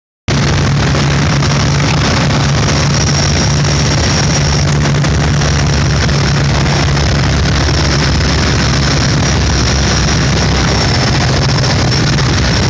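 P-51 Mustang's V12 piston engine running steadily, heard from inside the cockpit, a constant loud drone mixed with rushing air.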